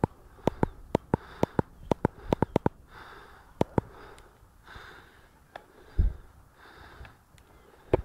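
Breathing or sniffing close to the microphone, with a quick run of sharp clicks and knocks in the first few seconds and one heavier thump about six seconds in.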